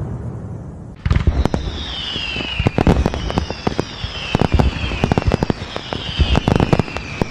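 Fireworks: a fading low rumble, then about a second in a sudden run of bangs and crackles begins. Falling whistles repeat roughly every second and a half through it.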